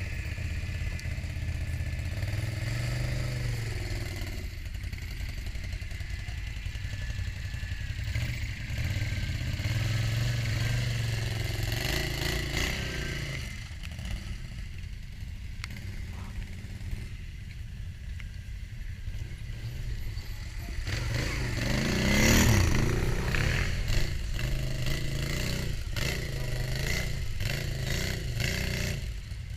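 Quad bike (ATV) engines running and revving on a muddy trail, the engine note rising and falling with the throttle. The loudest rev comes a little past the middle.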